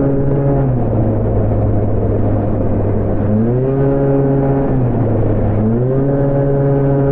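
Honda Gyro scooter engine running under way. Its pitch steps down about a second in, climbs again around three and a half seconds, dips briefly near five seconds and rises again near six, following the throttle.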